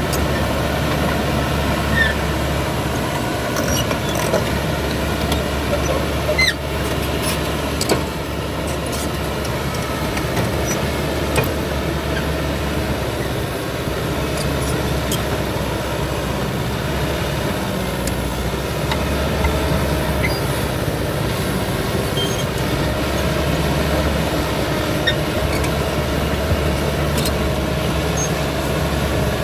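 Caterpillar D6R XL bulldozer's diesel engine running steadily, with a few short sharp clanks.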